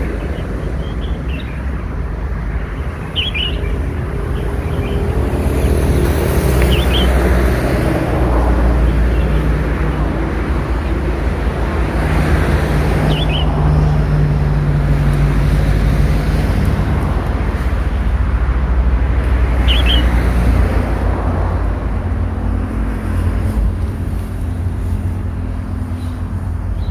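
A few short, high chirps from a red-whiskered bulbul chick, about five spread out over the stretch, over a loud, steady low rumble of passing motor traffic.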